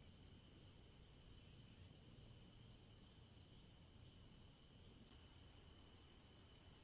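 Faint night crickets chirping in a steady, evenly pulsing high trill.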